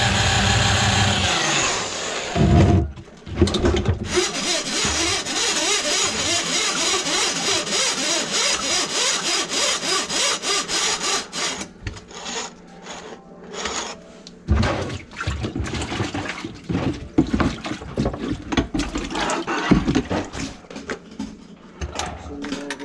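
Electric drain-cleaning machine's motor running, then shutting off about a second and a half in. Next comes a long stretch of rattling, scraping noise with a quick even rhythm as the steel cable is drawn back out of the grease-clogged drain line, then scattered clunks and knocks as the cable is handled.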